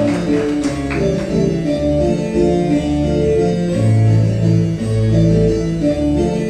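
Instrumental music on a keyboard, organ-like sustained chords over a moving bass line, with no speech.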